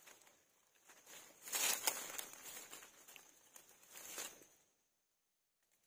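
Dry leaf litter rustling and crackling as hands and a knife dig through it to pull up wild mushrooms, loudest about one and a half to two seconds in and again about four seconds in.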